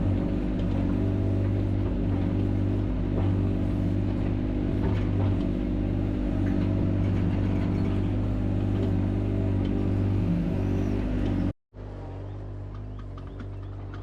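Mini excavator engine running steadily while it works the ditch. Near the end the sound cuts off abruptly and gives way to a quieter, lower engine hum.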